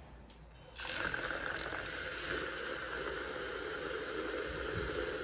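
Handheld electric milk frother running in a plastic cup of warm water and tea powders, switched on about a second in and then whisking the drink steadily.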